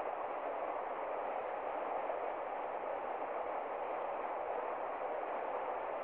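Shallow rocky stream rushing through white-water rapids over stones, a steady, unbroken rush of water.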